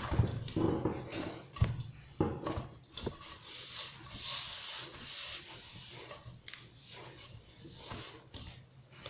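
Hands pressing and rubbing a stiff, crumbly semolina-and-flour dough around a bowl. Irregular dull thumps over the first few seconds, then a sandy, hissing scrape of the dry mix against the bowl's side. The dough is only being gathered, not kneaded.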